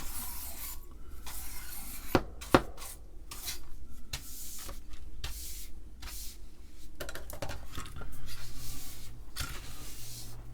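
A brush swept back and forth in repeated short strokes, scrubbing dirt and dead insects off a grimy vintage computer part, with two sharp knocks a little after two seconds in.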